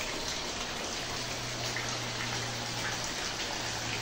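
Steady rain, with rainwater pouring off the roof edge and splashing into a plastic bucket and basin on a wet tiled floor.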